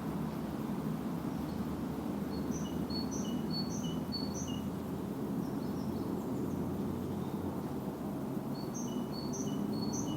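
A songbird singing a phrase of quick high notes repeated about twice a second, four times, then again three times near the end, over a steady low rumble of background noise.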